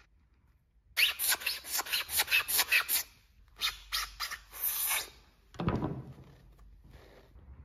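A blunt kitchen knife sawn rapidly back and forth across a scouring sponge on a wooden cutting board, a scraping rasp of about five strokes a second, then a few slower strokes; the blade squashes the sponge rather than cutting it. Past the middle comes one louder knock as the knife is put down on the board.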